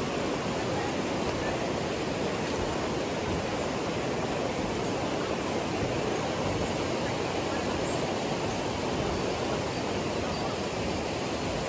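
River water rushing over rapids, a steady, unbroken noise.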